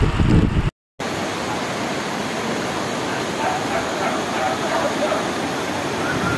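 Brown floodwater from a flash flood rushing in a fast torrent, a loud steady roar of water, cutting out for a moment just under a second in. Faint dog barks come through the rushing partway along.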